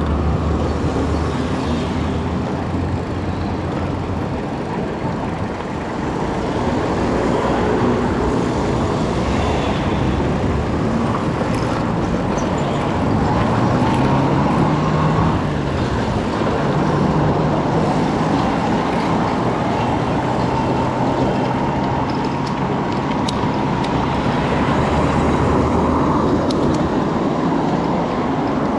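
Motor vehicle engine running, with steady road and tyre noise; the engine note drifts up and down a little.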